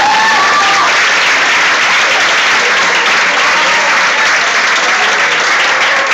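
Audience applauding with dense, steady clapping, as a held tone dies away in the first second.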